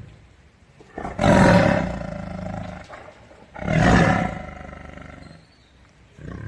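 Tiger roaring: two loud roars, the first about a second in and the second just past halfway, each dying away over a second or so, then a short weaker one near the end.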